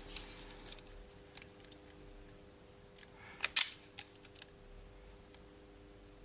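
Wire strippers clicking and snipping as insulation is stripped from the ends of limit-switch wires: a few scattered sharp clicks, the loudest pair about three and a half seconds in.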